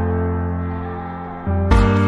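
Background music: sustained, fading chords, then a beat with low drum hits comes in near the end.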